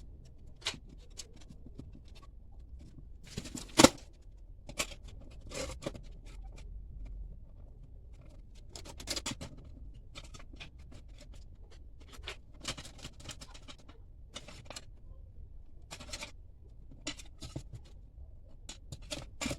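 Hand work on a metal mouse trap: scattered clicks, taps and scrapes as parts and screws are handled, with one sharp clack about four seconds in.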